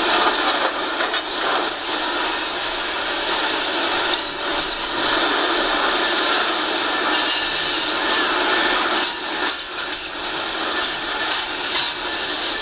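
Freight train of open-top coal hopper cars rolling past: a steady rattling rush of steel wheels on the rails, with a few louder clacks. Heard through a television speaker, so it is thin, with little bass.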